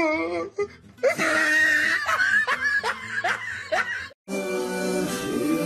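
A person laughing in a run of short rising bursts over background music. About four seconds in the laughter cuts off and, after a brief gap, a song with instruments starts.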